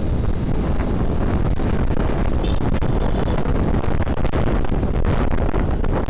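Steady wind buffeting on the microphone of a Honda Vario 125 scooter riding at speed, mixed with the running of its single-cylinder engine and tyre noise on the road.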